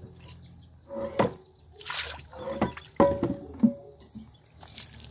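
Water sloshing and splashing as cast-iron pots are rinsed by hand, with a few sharp knocks of iron as a pot is tilted and turned upside down. Some knocks ring briefly.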